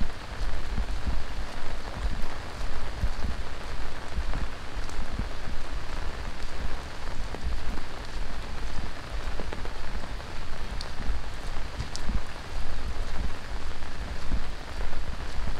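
Heavy tropical monsoon rain pouring steadily, with scattered sharper drop hits and a fluctuating low rumble underneath.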